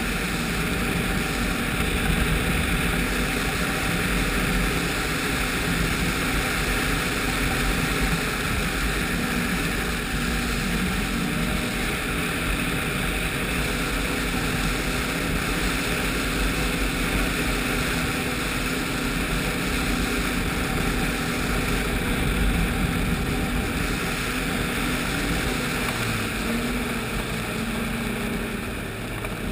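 Ski-Doo 1200 4-TEC snowmobile's three-cylinder four-stroke engine running steadily at cruising speed, under a constant rush of wind and snow noise; the engine note shifts slightly near the end.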